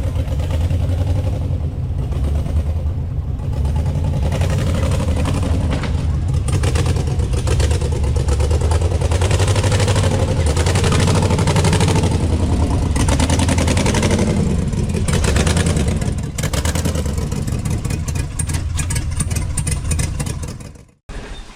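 Off-road 4x4's engine running under load, its pitch rising and falling with the throttle.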